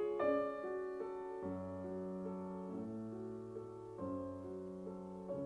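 Background piano music: a slow, gentle piece with sustained notes and a low bass line coming in about a second and a half in.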